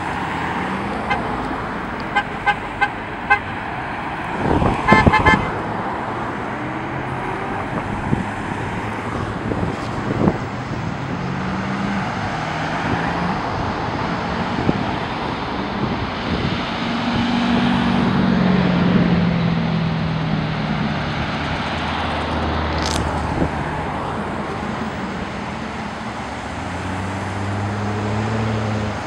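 A procession of Corvette V8s driving past one after another, the engine note rising and falling as each car goes by. Horns toot several short times about two to three seconds in, with a longer honk about five seconds in.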